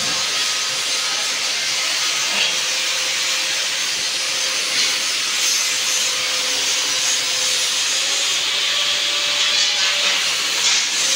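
Angle grinder grinding metal: a steady, high rushing noise with a faint motor whine that rises slightly about eight seconds in.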